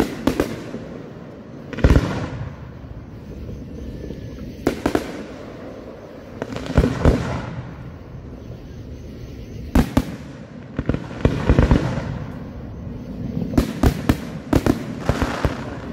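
Aerial fireworks shells bursting: sharp booms every one to three seconds, some single and some in rapid clusters of several reports, each fading out briefly after the bang.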